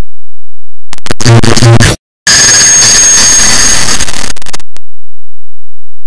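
Harsh, heavily clipped digital noise made from a clock-ticking sound stacked and amplified until no tick is left. A buzzy distorted burst starts about a second in and cuts out sharply at about two seconds. It is followed by a hissing rush with a thin high whistle in it that stops about four and a half seconds in.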